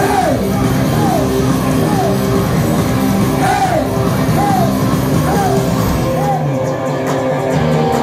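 Live punk rock band: a singer yells a short phrase that rises and falls, over and over, over guitar, bass and drums. About six seconds in the low end drops out and the guitar carries on.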